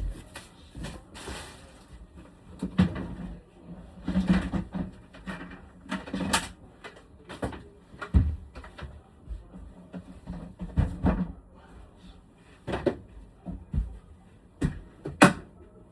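Irregular knocks, clicks and clatter of hard parts being handled and set down, with rustling and scraping in between.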